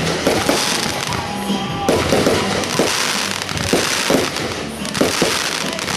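Fireworks going off in a rapid, continuous barrage of bangs and crackle, with music playing underneath.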